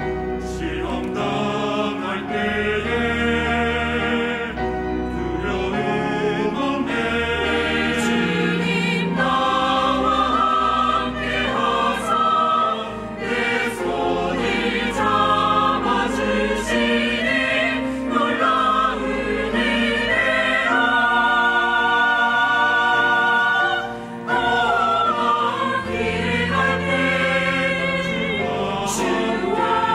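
Mixed church choir of men and women singing a Korean choral anthem in parts, with piano accompaniment.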